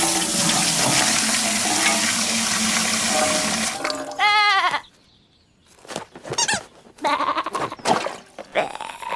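Water rushing and splashing for about the first four seconds. Then a lamb's bleat, followed by a pause and a few short knocks and brief bleats.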